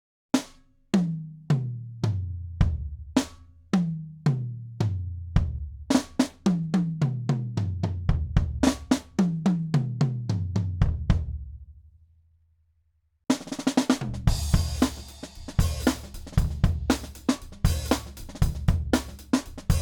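Traps Drums acoustic kit with two-ply clear heads: single tom strikes stepping down from the higher toms to the floor tom and repeating, then coming faster. They ring out and die away past the middle. After a brief silence, a full-kit groove starts with bass drum, snare, hi-hat and cymbals.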